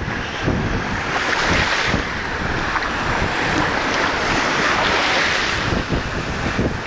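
Wind buffeting the microphone, over small waves breaking and washing through shallow sea water.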